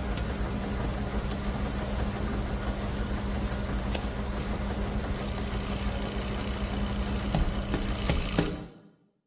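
Steady mechanical hum and rumble of laundromat washing machines running, with a couple of faint clicks. It fades out to silence near the end.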